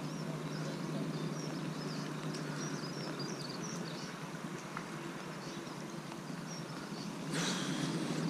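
A narrowboat's diesel engine running steadily with a low hum, with small birds chirping over it; a brief rustle about seven seconds in.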